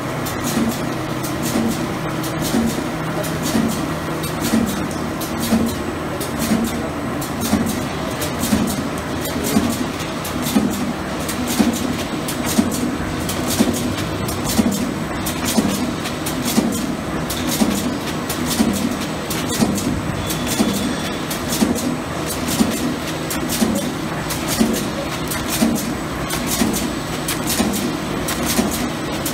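Dynamic Plus wet wipes packaging machine running, with a regular heavy beat a little more than once a second over a continuous mechanical clatter and clicking.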